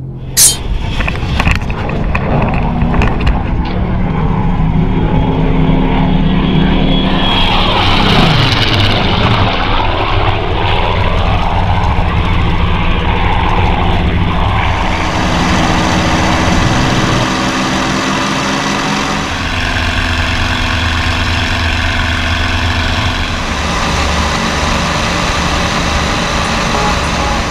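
Piston warbird fighter engines and propellers running hard, heard from onboard cameras as the F4U-4 Corsair's radial engine and then the P-38 Lightning's twin V-12 engines roll down the runway. A sharp click comes about half a second in. The engine note slides down and back up about a third of the way through, and changes character around the middle.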